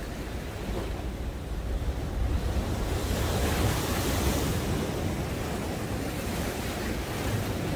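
Heavy sea surf surging and breaking against the concrete tetrapods of a breakwater, with one large wave crashing about halfway through in a swell of hiss and spray.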